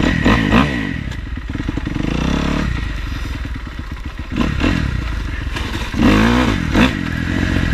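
Dirt bike engine warming up: running unevenly and revved twice, near the start and about six seconds in, spitting and sputtering as a cold engine does.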